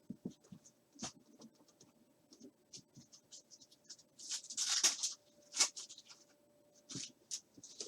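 Card packaging being handled and opened by hand: scattered small clicks and scratches, with a louder rustle about four to five seconds in and a sharp one just after.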